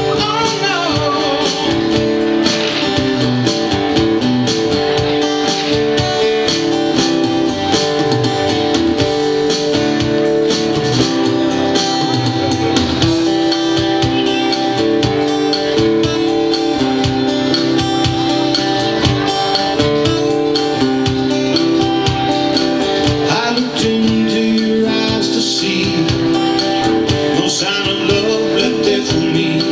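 A song played live on guitar, with a steady full band-style sound.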